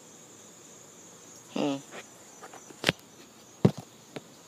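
Insects chirping with a steady high drone. About a second and a half in there is one short low vocal sound, and two sharp knocks come about three and three and a half seconds in; the knocks are the loudest sounds.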